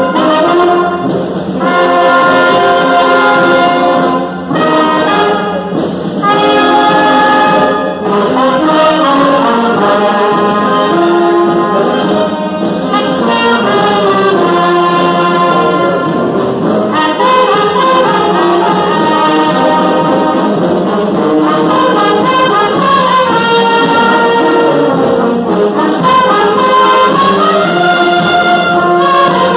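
Wind band of trumpets, trombones, saxophones and clarinets playing together, mostly long held chords over a steady low line. Over the first eight seconds the playing stops short a few times between phrases, then it runs on without a break.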